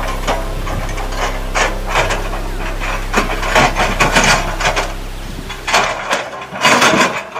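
Acacia logs knocking and clattering against each other at irregular intervals as an excavator's log grapple drops and shifts them on a truck bed, over the steady low hum of the excavator. The hum drops out about six seconds in.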